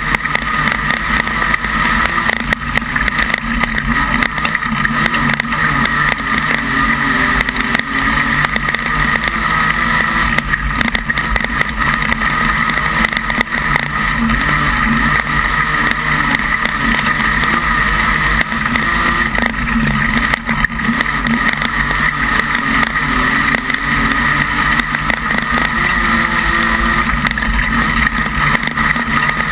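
Modified Production speedway race car's engine running hard at race pace, heard from inside the cockpit; loud and steady, its pitch rising and falling slightly as the throttle changes.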